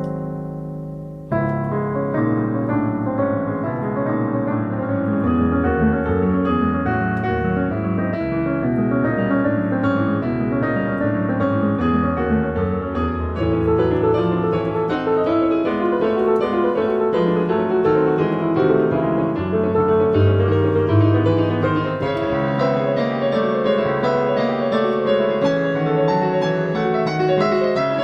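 Digital piano being played, with chords over a bass line. A held chord ends about a second in, and a new passage starts right after.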